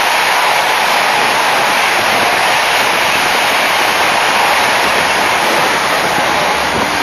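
Express passenger train rushing past at speed right beside the platform edge: a loud, steady rush of wind and wheel noise.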